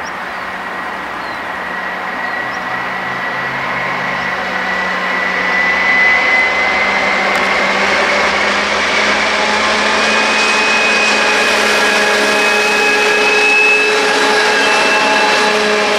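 Ludmilla-type diesel locomotive (class 231/232, Kolomna V16 diesel) approaching and passing with a train of hopper wagons: the engine drone grows steadily louder, with a high turbocharger whine rising slowly in pitch.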